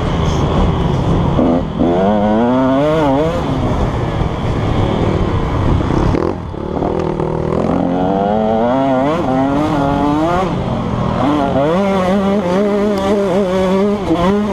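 KTM 150 SX single-cylinder two-stroke motocross bike engine being ridden hard, revving up and falling back again and again as the rider works the throttle and gears, with a brief throttle-off about six seconds in. Wind noise runs under it.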